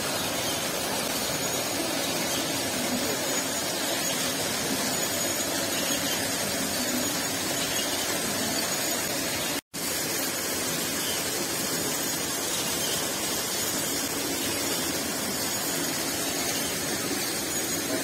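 A steady, even rushing noise with no rhythm or clear pitch, cutting out for an instant about ten seconds in.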